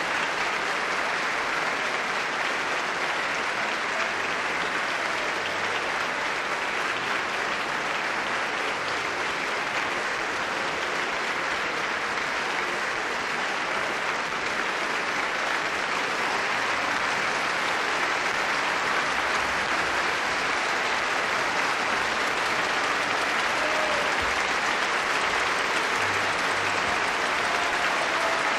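Large concert-hall audience applauding steadily, growing slightly louder near the end.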